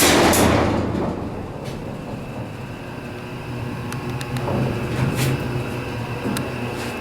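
Freight elevator doors sliding open with a loud clatter that fades over about a second. A steady low hum follows, with a few faint clicks.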